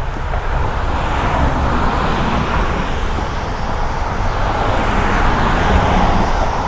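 Tyre hiss of a car driving on a wet road, swelling as it passes, over a steady low rumble.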